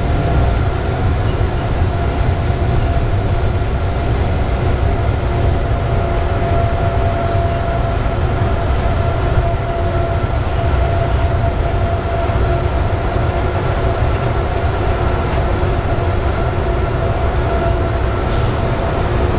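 Airport people-mover tram running at speed, heard from inside the car: a steady low rumble of the wheels on the concrete guideway with a steady whine on top.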